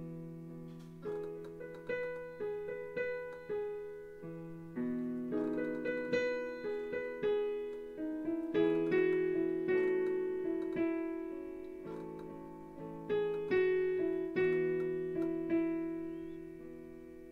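Piano playing slow chords and single notes without singing, each struck and left to ring out, dying away near the end as the song closes.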